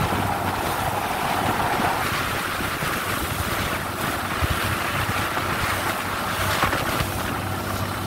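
Wooden fishing boat under way: its engine running steadily under water rushing along the hull, with wind buffeting the microphone.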